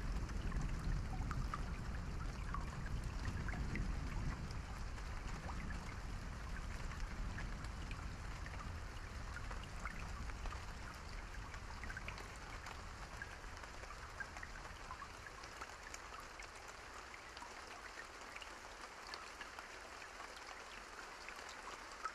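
Rain falling steadily, with many individual drops ticking sharply over the hiss. A low rumble underneath fades away over the first half.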